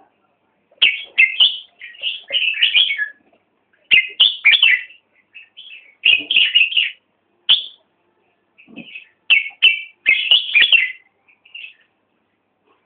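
A bird chirping in quick runs of high, sharp chirps, several runs with short silent gaps between them.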